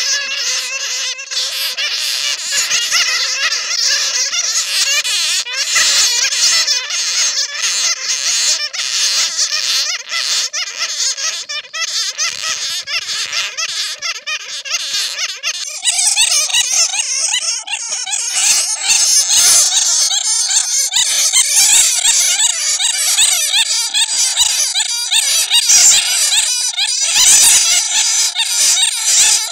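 Bats squeaking and chattering, a dense run of rapid high-pitched squeaks: the calls of bats caught in a net. The chatter shifts and grows a little louder about halfway through.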